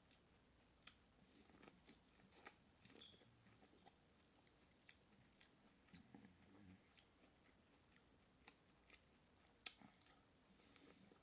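Faint close-miked eating sounds of a seafood boil: soft chewing and lip smacks with scattered small clicks, and one sharper click near the end.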